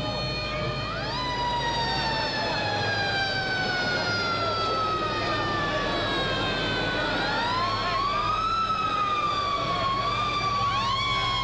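Emergency vehicle sirens wailing, at least two overlapping: each rises quickly in pitch, then falls slowly.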